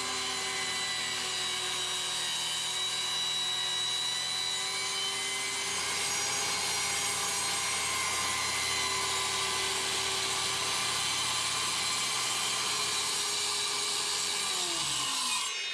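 Circular saw running and cutting through a plywood sheet with a steady whine; near the end the trigger is released and the blade winds down, its pitch falling.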